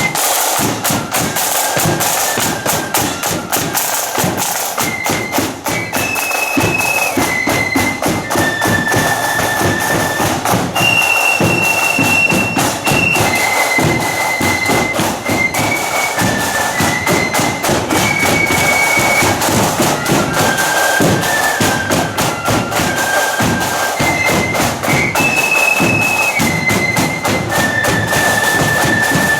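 Marching flute band playing a high-pitched melody in unison on flutes, backed by rapid snare drumming and bass drum beats.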